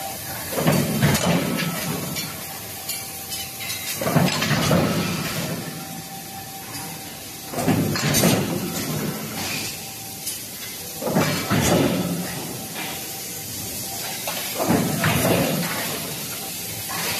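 Automatic induction-heating billet forging line running in cycles, with a loud noisy burst about every three and a half seconds as the line works through each billet. A faint steady whine runs underneath for the first ten seconds or so.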